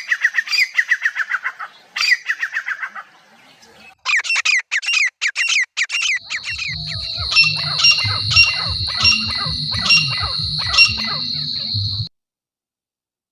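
Grey francolin calling in rapid repeated series of loud, harsh, descending notes. About halfway through, a steady high whine and a low rhythmic throb with regular sharp strokes join in. All sound cuts off suddenly near the end.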